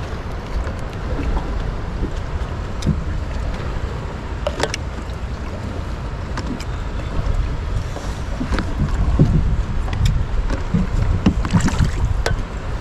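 Wind buffeting the microphone as a heavy, uneven low rumble, loudest about two-thirds of the way through, with scattered sharp clicks and knocks over it.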